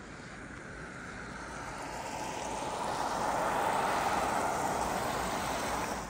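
A road vehicle driving past: a rising swell of tyre and engine noise that peaks a few seconds in and then cuts off suddenly near the end.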